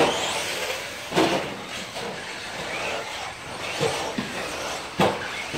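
Radio-controlled stadium trucks racing on a dirt track: a steady hiss of motors and tyres, with a few sharp knocks, one about a second in and the loudest near the end.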